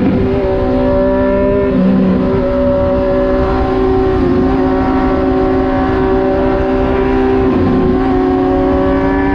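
Motorcycle engine cruising at nearly steady revs on an open road, its pitch dipping briefly twice, heard from the riding bike with wind rush on the microphone.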